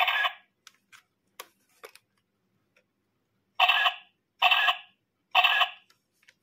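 Pink toy camera giving a short electronic sound each time its shutter button is pressed and the flash fires: once, then three times in quick succession about halfway through, with faint plastic clicks between.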